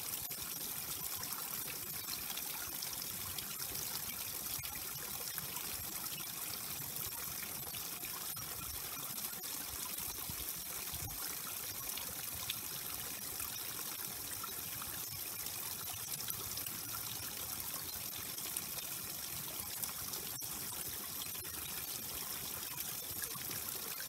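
Small waterfall: thin streams of water trickling and splashing off a rock ledge into a stream, a steady even rush.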